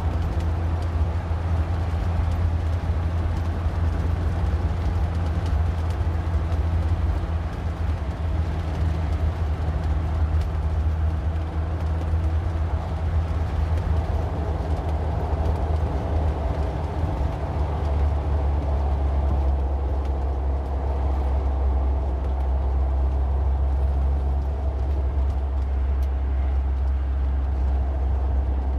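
A car being driven: a steady low engine drone with road and tyre noise, whose pitch steps down about two-thirds of the way through.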